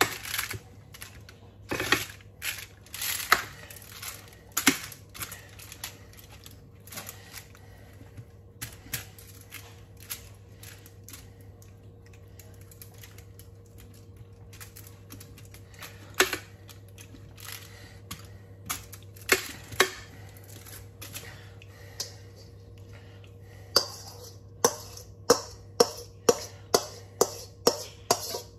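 Metal spoon clicking and scraping on a foil-lined baking tray as marinated chicken and potatoes are spread, in scattered sharp taps. Near the end it turns to a quicker run of taps, about two a second, as the marinade is scraped out of a steel mixing bowl.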